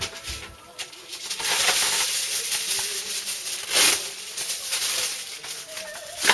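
Rustling, rattling handling noise with no clear pitch, starting about a second and a half in, with one sharp louder burst near the middle.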